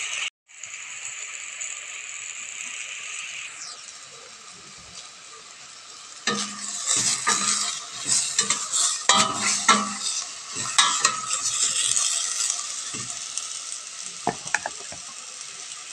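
Chicken breast pieces and sliced mushrooms sizzling in a metal pot as the liquid the mushrooms released cooks off. From about six to twelve seconds in, a metal spoon scrapes and clinks against the pot as they are stirred.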